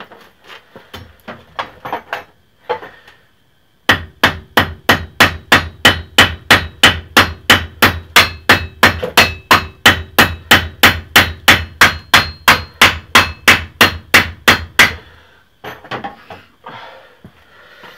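Hammer peening over the cut-short end of a nail used as a rivet through an axe haft, mushrooming it so it holds. A few lighter taps come first, then after a short pause a long, even run of hard metal-on-metal blows, about three to four a second for some ten seconds, each with a slight metallic ring.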